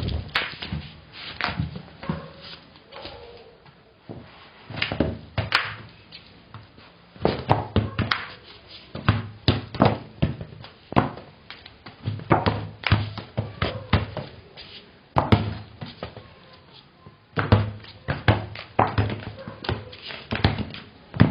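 A run of irregular thuds and knocks in clusters, with quieter gaps about four seconds in and again near sixteen seconds: footsteps and knocks of someone moving about a house and handling things.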